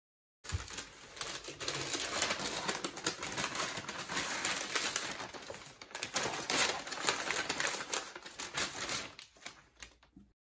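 Kraft paper shopping bag rustling and crinkling as it is opened and goods in plastic sleeves are pulled out, a dense run of small crackles that starts about half a second in and fades out just before the end.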